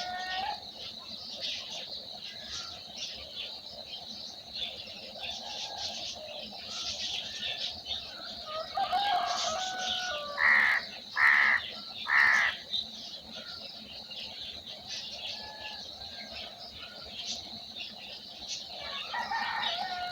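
Many small birds chirping continuously. A louder, longer bird call sounds near the start and again near the end, and three loud short calls come one after another about halfway through.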